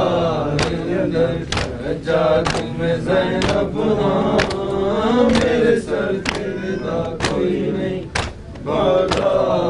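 Men reciting a Punjabi noha lament in unison, a sung chant with a led refrain. Over it, the rhythmic chest-beating of matam gives a sharp slap about once a second.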